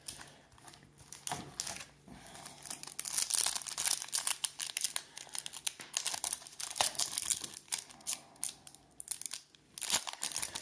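Plastic trading-card pack wrappers crinkling and tearing as they are handled and opened, a dense run of irregular crackles that thickens a few seconds in.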